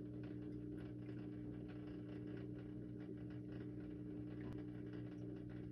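Steady low electrical hum from aquarium equipment, with faint, irregular ticking and patter of water over it.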